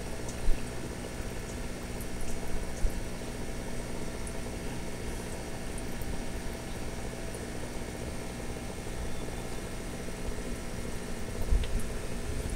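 Aquarium water pump running, a steady hum with bubbling water, and a sharp knock about half a second in.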